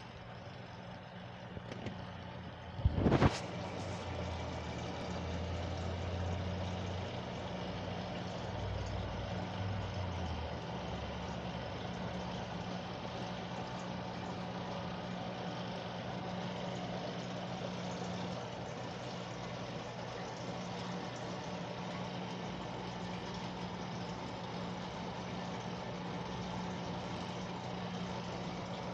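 Aquarium filter pump humming steadily, with a low tone that swells and fades in the first ten seconds. A single sharp knock about three seconds in.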